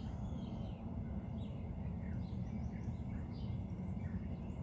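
Small birds chirping outdoors, many short high chirps scattered throughout, over a steady low rumble.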